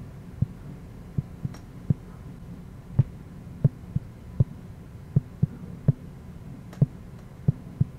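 Fingertip taps on an iPad touchscreen as the keys of a sampler app are played: about fifteen dull, irregularly spaced knocks over a steady low hum.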